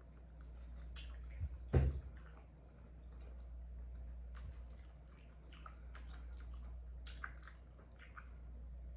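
Close-up eating of a saucy seafood boil: wet chewing, squishing and small clicks as food is handled by hand, with one dull knock just before two seconds in.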